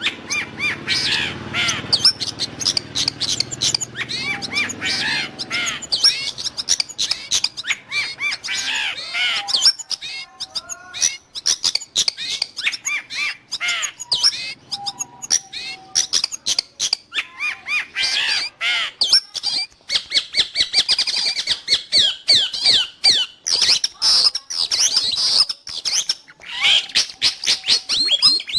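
Long-tailed shrike (cendet) singing: a fast, nearly unbroken stream of short, high chattering notes, with rapid rattling runs in the later part.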